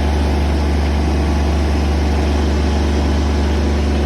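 Engine of a piece of heavy equipment with a swinging, lifting arm, running steadily with a low, even drone as the machine moves logs.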